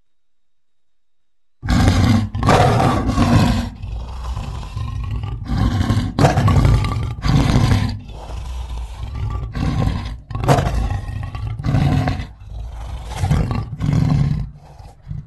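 Lion roaring sound effect, presented as the extinct Mosbach lion: after about a second and a half of silence, a long run of loud, deep roars and grunts follows one after another, each starting and stopping abruptly.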